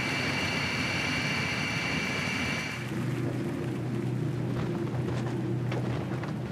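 Jet airliner in flight: a steady rush of engine noise with a high whine, giving way about three seconds in to the lower, steady hum heard inside the passenger cabin.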